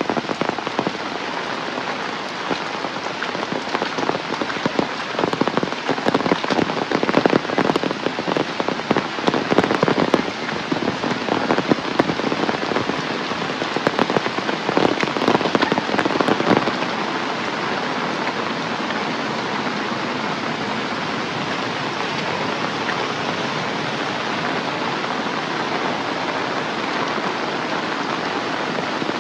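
Heavy rain falling, a dense hiss full of sharp drop impacts. About two-thirds of the way through the patter evens out into a smoother, steady hiss.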